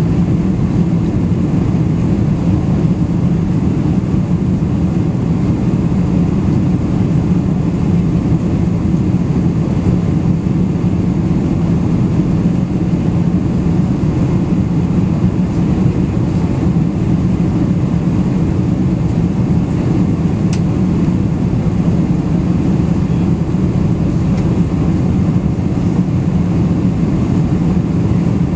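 Steady cabin noise of a Boeing 747-400 in its climb after takeoff: a constant deep rumble from its Rolls-Royce RB211 engines and the airflow past the fuselage, heard from inside the cabin.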